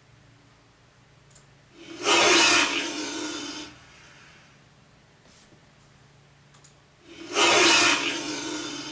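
A monster sound-effect clip for a giant-spider prop, played twice through computer speakers: each time a harsh, noisy burst that swells quickly and trails off over about two seconds. A few faint mouse clicks fall between the two plays.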